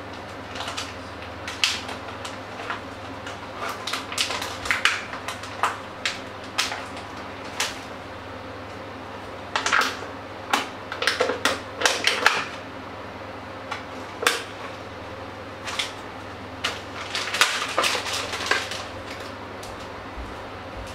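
Plastic food tray and packaging handled over a stainless steel mixing bowl: irregular clicks, taps and rustles, busiest around ten to twelve seconds in and again around seventeen to nineteen seconds, over a steady low hum.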